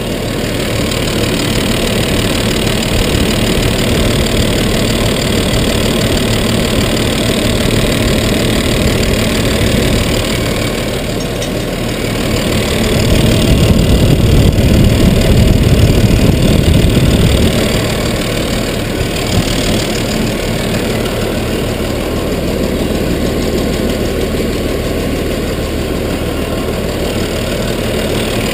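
Massey Ferguson 3125 tractor's diesel engine running at idle, growing louder and deeper for about five seconds in the middle before settling back.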